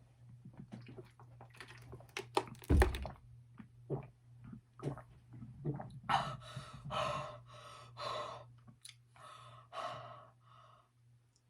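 A person reacting in disgust to a mouthful of earthworm jerky. There are small wet mouth clicks and a dull thunk about three seconds in, then a run of about eight short breathy gasping noises in the second half.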